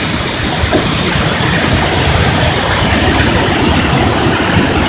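Waterfall close by: a steady rush of falling water.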